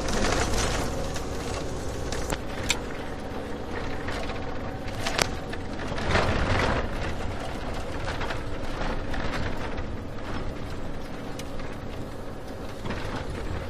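Road vehicle driving, with a steady engine and road hum that swells a couple of times, and a few sharp clicks.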